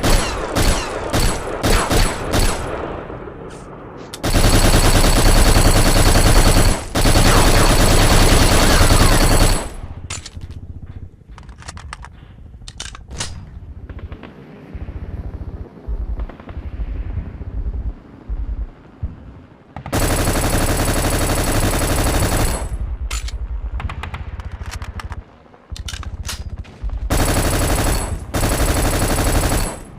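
Colt AR-15A2 Government Carbine, a 5.56 mm rifle, firing. A quick string of single shots opens, then long sustained bursts of rapid fire around 4 to 10 seconds in, around 20 seconds in and near the end, with scattered single shots between them.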